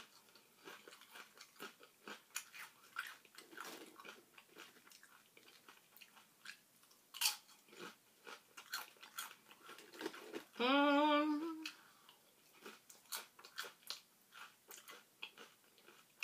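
A person chewing and crunching chips, with many small crunches. About ten seconds in comes a single loud hummed "mmm" lasting just over a second, which is the loudest sound.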